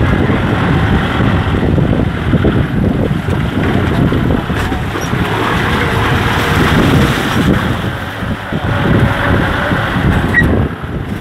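Kubota M6040 SU tractor's diesel engine running steadily as the tractor drives along, heard from on board with some wind noise on the microphone.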